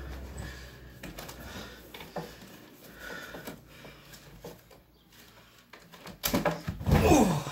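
A person leaps from a nightstand onto a bed: a loud heavy thump of the body landing on the mattress about six to seven seconds in, with a brief falling creak from the bed. Before it, only quiet shuffling and light knocks as he climbs up.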